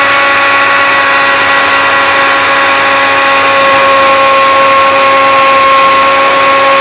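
Jaipan 1200-watt mixer grinder's motor running at full speed, a loud steady whine, grinding cumin seeds to a finer powder in its small stainless dry-grinding jar.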